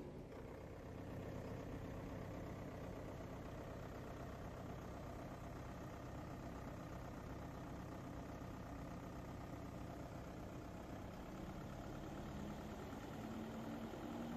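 Deutz BF4M2011C four-cylinder diesel engine of a generator/air-compressor set, running steadily just after starting. Near the end its tone rises slightly and gets a little louder.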